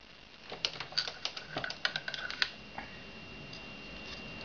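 Hornady 366 Auto progressive shotshell press being worked: a quick run of light metallic clicks and rattles over about two seconds.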